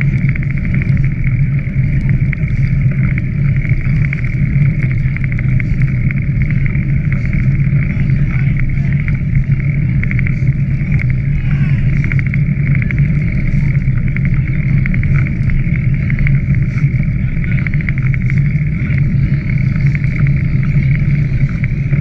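Steady rumbling wind and movement noise on a camera travelling along the riverbank, with a constant low hum underneath.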